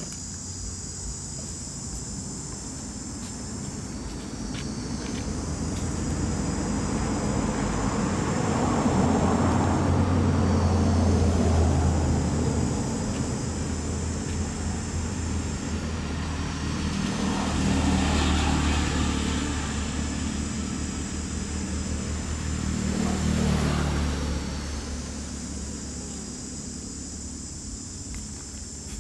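Motor vehicles passing by, their engine and tyre noise swelling and fading three times, loudest about a third of the way in. A steady high insect chorus runs underneath.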